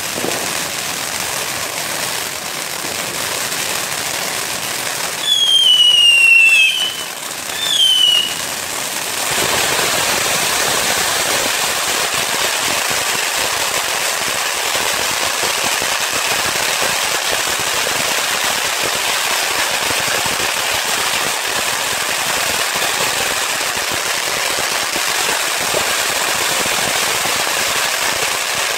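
Ground fountain fireworks hissing and crackling steadily as they spray sparks. About five seconds in come two loud whistles that fall in pitch, the first lasting over a second and the second shorter. After that the hiss turns fuller and louder.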